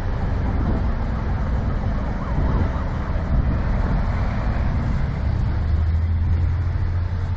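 Low, steady rumble of vehicle engines running, with a deeper engine hum swelling about five seconds in.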